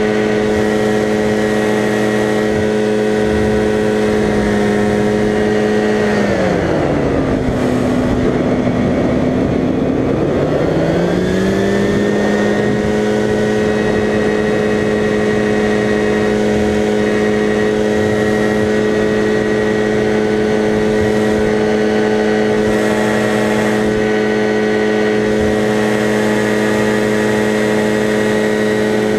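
Ultralight trike's engine and propeller running steadily in flight. About six seconds in the engine is throttled back and its pitch falls, then it is opened up again, rising back to the steady cruise note by about twelve seconds.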